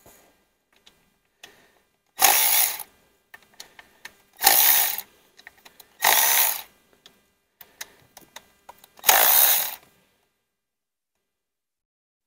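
Cordless electric ratchet undoing the screws of the ignition coils on a Mercedes M112 V6, four short half-second runs a second or two apart, with small clicks of the tool being handled between them.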